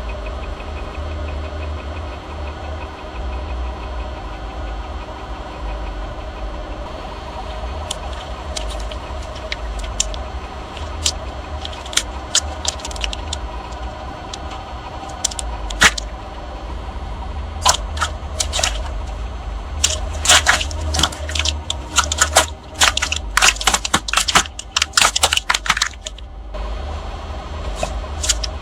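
A car's engine runs low and steady while a run of sharp cracks and snaps sets in about a third of the way through and grows dense near the end: crunchy objects breaking under the car's tyres.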